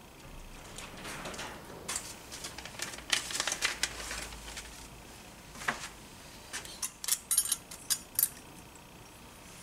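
Light metallic clicks and clinks of engine parts handled on a workbench while the moped engine's cylinder is fitted over the piston: a scattered run about three to four seconds in, then a quicker series of sharp clicks near the end.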